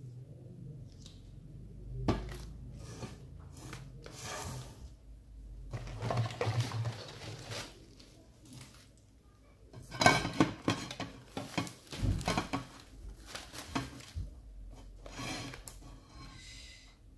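Handling noise from arranging artificial plants: stiff plastic leaves rustling and decorated pots knocking and being set down on a tabletop, in irregular bursts with the loudest knock about ten seconds in.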